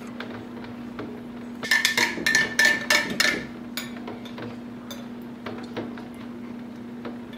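Metal spoon stirring sauce in a glass mason jar, clinking sharply against the glass in a quick run for about two seconds, starting nearly two seconds in, then a few lighter taps.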